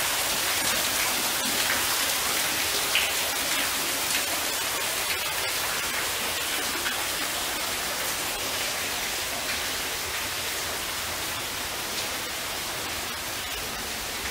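Falling water spattering like steady rain: an even hiss with scattered drops, fading slightly toward the end.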